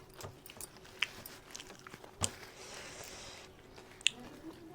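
Close-miked eating sounds: mouthfuls of mutton curry being chewed, with a few sharp clicks and a short hiss about halfway through.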